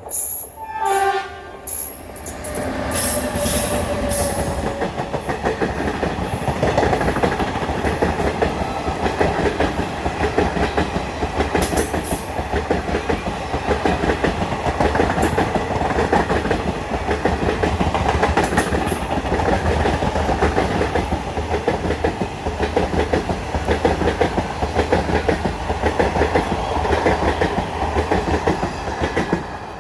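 Indian Railways train of ICF coaches running past at speed: a steady wheel rumble with a fast clickety-clack over the rail joints. A locomotive horn note sounds in the first few seconds.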